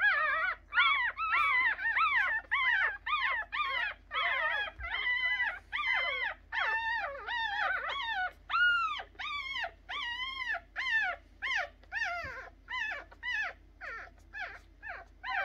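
Three-day-old puppies crying: a steady run of high squealing calls, two or three a second, each rising then falling in pitch, several voices overlapping at first, the calls growing shorter and fainter toward the end.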